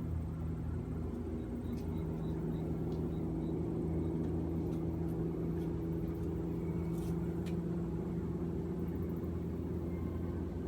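A steady low mechanical hum, like an engine idling, with a constant pitch.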